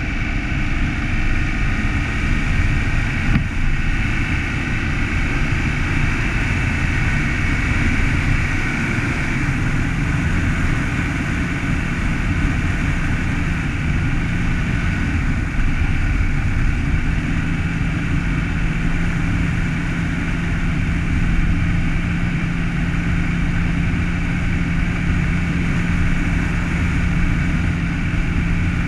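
A car driving at a steady speed on a cleared road: engine running with steady tyre and road noise. A low engine hum grows a little stronger in the second half.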